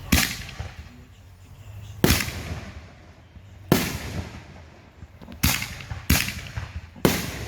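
Fireworks exploding overhead: six loud bangs about one to two seconds apart, each trailing off in an echo.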